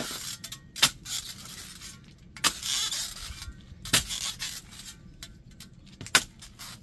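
A steel trenching spade digging into soil: four sharp strikes as the blade is driven in, each followed by scraping as dirt is pried loose.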